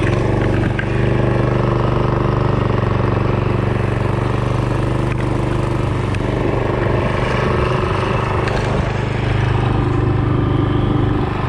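Predator 212cc single-cylinder engine on a small Chinese ATV with a torque converter, running at a steady speed under way with no big revs.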